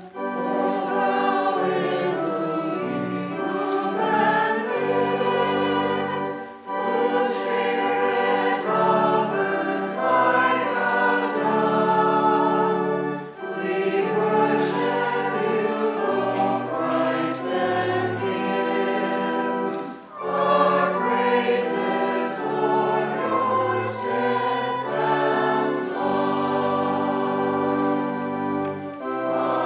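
Church choir singing an offertory anthem in long held phrases, with short breaks between phrases about every six to seven seconds.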